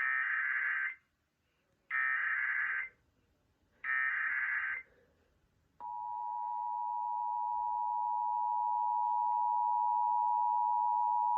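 Emergency Alert System broadcast tones: three one-second bursts of screeching digital SAME header data about a second apart. About six seconds in, the steady two-tone EAS attention signal starts and holds, swelling slightly.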